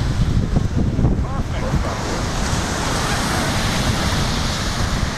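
Ocean surf washing on the beach, with wind buffeting the microphone.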